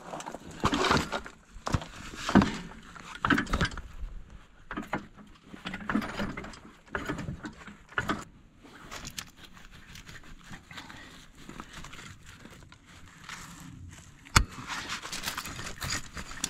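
Irregular clinks, scrapes and knocks of steel parts and hand tools being worked on a snowplow's mount latch, with one sharp metallic click about fourteen seconds in.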